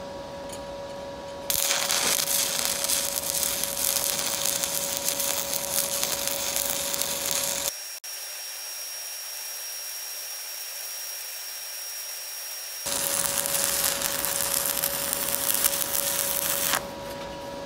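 Shielded metal arc (stick) welding with a 3/32-inch E7018 rod at 91 amps on a BlueArc 200STI inverter welder: a steady crackling sizzle of the arc. It strikes about a second and a half in and stops shortly before the end. For about five seconds in the middle it sounds thinner and higher.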